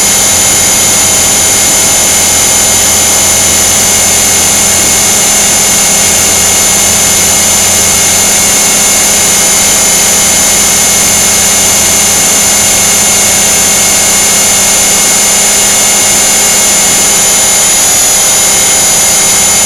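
Align T-Rex 500 electric RC helicopter in flight, heard up close: a loud, steady high whine from the brushless motor and drive gears over rotor noise, dipping briefly in pitch near the end.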